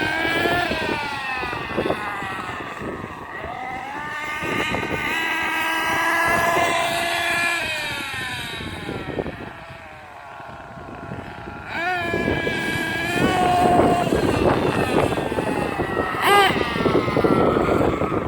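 Losi 8IGHT-T 1/8-scale RC truggy driving around, its small engine revving up and down in repeated rising and falling whines as it speeds past and away, over gusting wind noise on the microphone. It fades a little about ten seconds in, then comes back louder.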